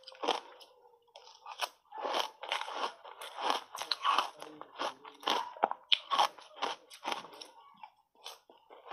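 Close-up crunching and chewing of ice cubes coated in matcha powder, a quick run of sharp crunches, a few a second, loudest through the middle and thinning out near the end.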